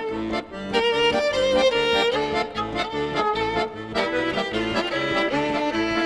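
Music played on bowed strings: a melody of short, changing notes, some with a slight vibrato.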